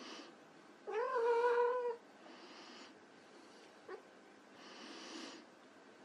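Persian kitten giving a single meow about a second long, rising briefly at the start and then held steady. Softer breathy noises come and go around it.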